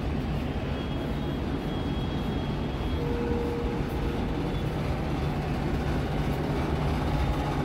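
Steady rumble of distant city traffic heard from a high-rise balcony, with a short steady tone about three seconds in.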